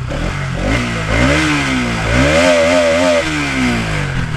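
Motorcycle engine revving up and dropping back twice, its pitch wavering at the top of the second rise.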